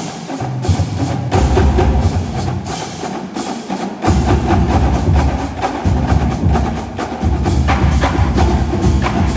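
Marching drumline, with snare, tenor and bass drums, playing a fast passage in rapid strokes. The bass drums drop out briefly and come back in hard about four seconds in.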